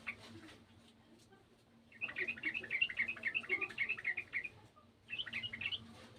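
Yellow-vented bulbul (trucukan) singing: a brief note at the start, a fast bubbly run of chattering notes about two seconds in lasting over two seconds, then a shorter burst about five seconds in.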